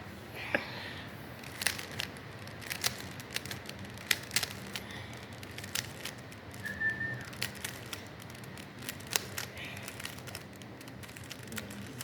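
Rubik's Cube being turned by hand: irregular plastic clicks and rattles of the layers, with a short faint whistle-like tone about seven seconds in.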